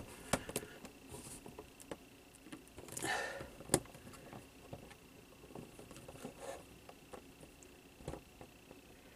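Small flathead screwdriver scraping and picking at the plastic case and corner screw of an Xbox power supply brick: scattered faint scratches and ticks, with a scrape about three seconds in and one sharper click just after.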